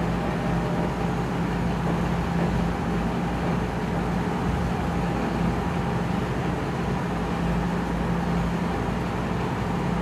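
Steady room hum: a constant low drone with an even background hiss, with no distinct strokes or events.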